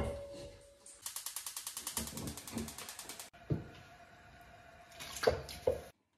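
Kitchen utensil sounds at a stove: a sharp clink with a short ring, then a run of rapid, even ticks lasting about two seconds, then a few knocks of utensils against the pan.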